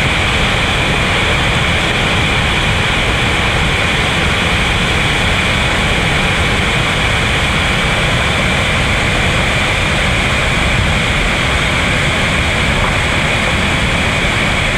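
Steady roar of big-volume whitewater rapids, loud and unbroken.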